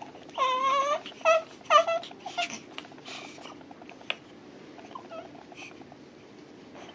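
Baby crying: one high wail about half a second in, then a few short cries that trail off into quiet fussing.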